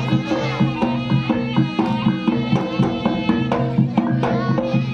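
Traditional East Javanese trance-dance music: a wavering reed-pipe melody over a steady beat of drums and struck gongs.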